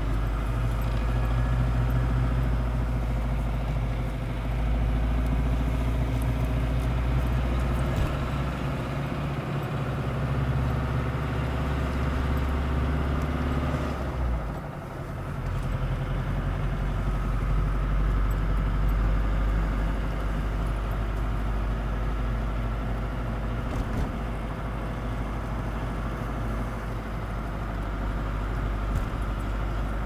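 Car engine and road noise heard from inside the cabin while driving, a steady low drone. It dips briefly about halfway through and then picks up again.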